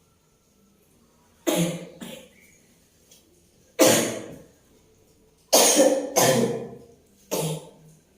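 A woman coughing hard, five or six separate coughs spread over the seconds with short pauses between, two of them coming as a quick pair near the middle: the persistent cough that has not cleared up.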